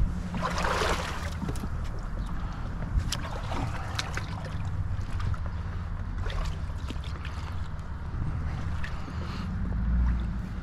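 Kayak paddle dipping and splashing in shallow water, with a splash about half a second in and scattered small drips and knocks after it, over a steady low rumble.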